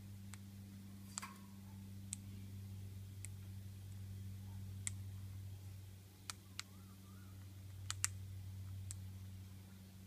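Australian king parrots cracking seed and pecking at a wooden railing: about ten sharp, irregular clicks over a steady low hum.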